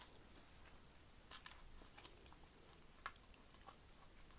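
Quiet chewing of crunchy fried food, with a few short, crisp crunches about a second and a half, two and three seconds in.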